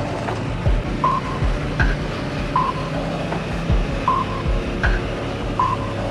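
Background music with a steady beat: a low thump about every three-quarters of a second and a short repeating note every second and a half.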